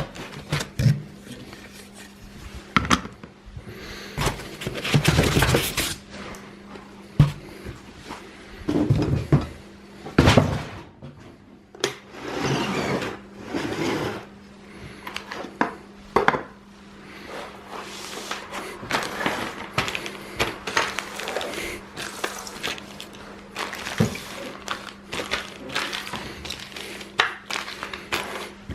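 Parts of a 3D printer kit being handled and set down on a workbench: irregular clinks and knocks of metal and hard plastic pieces, with a few longer stretches of rustling and scraping.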